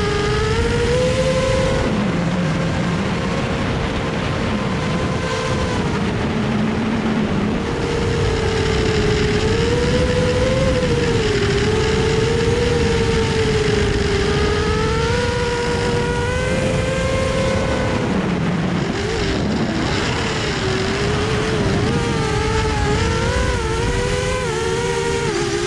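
A drone's electric motors and propellers whining steadily, the pitch wavering up and down as the throttle changes.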